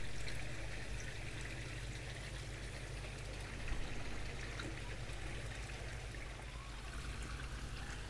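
Koi pond water trickling and splashing steadily over a low, steady rumble.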